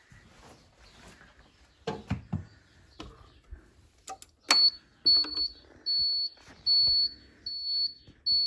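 A few knocks and clicks, then a fire alarm sounder starts a high-pitched pulsing beep about halfway in, a short beep repeating roughly every 0.8 s. The smoke detector has gone into alarm after being dosed with aerosol smoke-detector test spray.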